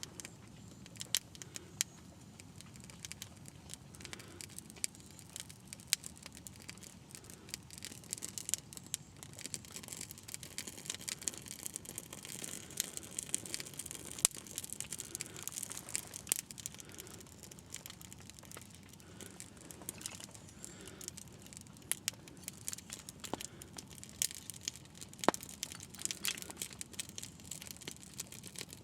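Wood campfire burning, crackling with irregular sharp pops over a steady faint hiss.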